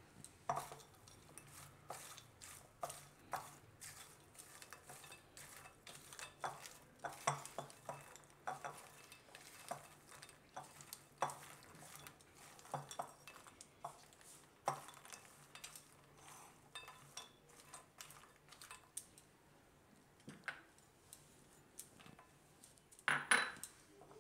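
A silicone spatula stirring roasted makhana (fox nuts) and chopped vegetables in a glass bowl: soft scraping with irregular light taps and clinks against the glass, a little louder near the end.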